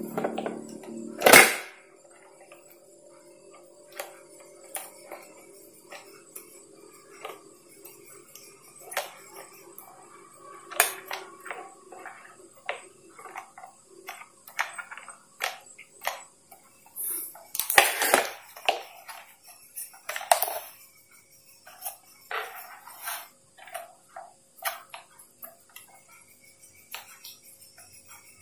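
Scattered clicks, taps and knocks from handling the wiring, plastic connectors and housing of a disassembled blender, with a sharp louder knock near the start and a cluster of louder knocks about two-thirds of the way through.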